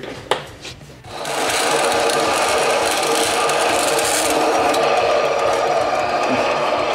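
Band saw starting about a second in and cutting steadily through a metal carpet tack strip, the blade grinding on the thin steel.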